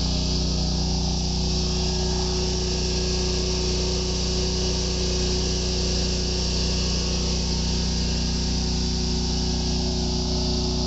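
Lawn mower engine running steadily at a constant speed, an even engine hum with a hiss above it.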